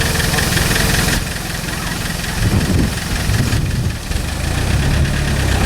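Toyota Hilux 2.8-litre turbo-diesel engine running at low revs with a diesel clatter while the truck crawls over rocks, the note dropping about a second in, swelling and dipping as the throttle is worked, then growing stronger and deeper near the end.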